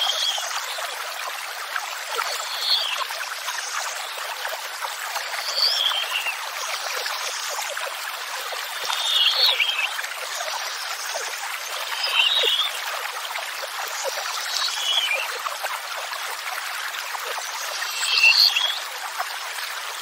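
Steady rush of running water, with a songbird repeating the same short, high, stepped-down song phrase about every three seconds.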